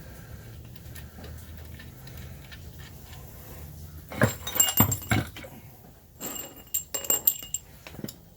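Metal tools and engine parts clinking and clanking together in two short clusters with a ringing metallic edge, about four and about six seconds in, after a low steady hum.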